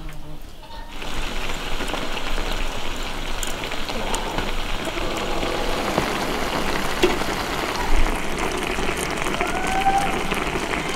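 Beef tripe and cabbage sizzling in sauce in a wok: a dense crackling hiss that starts suddenly about a second in.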